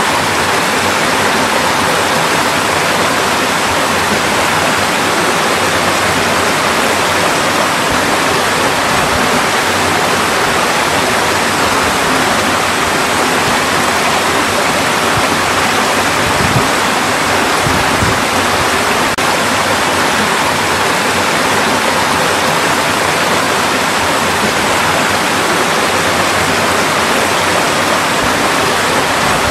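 Mountain valley stream rushing steadily, an even, unbroken sound of running water.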